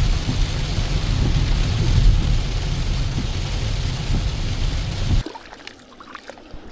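Loud, steady rushing noise with a heavy low rumble, the sound of wind or rushing water on the microphone, which cuts off suddenly about five seconds in.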